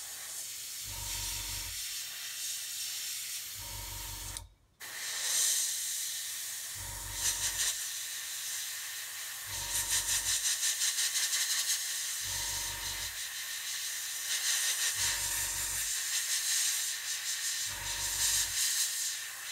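Airbrush spraying white paint onto a plastic scale model: a steady hiss of air and paint that cuts out for a moment about four and a half seconds in. Under it, a low hum comes and goes about every three seconds.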